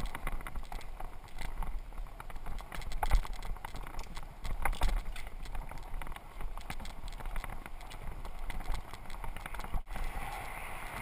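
Mongoose mountain bike rolling over a rough walkway, its frame and parts rattling and clicking irregularly over a low wind rumble. Near the end the clatter gives way to a steadier hiss of tyres on smooth asphalt.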